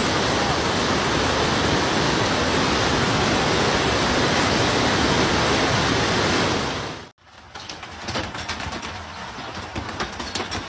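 Heavy hail and rain pelting a car in a dense, steady roar that cuts off suddenly about seven seconds in. A quieter hailstorm follows, full of scattered sharp hailstone impacts.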